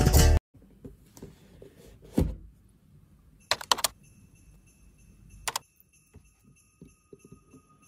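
Music cuts off abruptly, then a cardboard shipping box is handled: a soft thump, a quick cluster of sharp taps and another single tap, with faint high ringing tones coming in about halfway.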